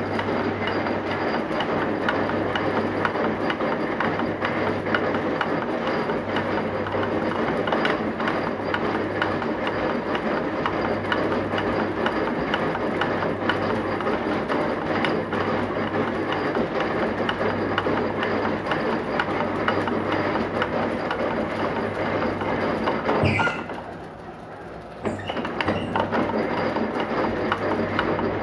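Heavy machinery running steadily: a constant low hum under dense rattling and knocking. It drops off briefly about 23 seconds in, then picks up again.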